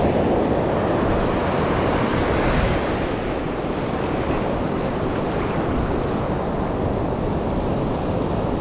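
Ocean surf breaking and washing up the beach, with wind on the microphone. The hiss of the wash is strongest in the first three seconds, then settles to a steady rush.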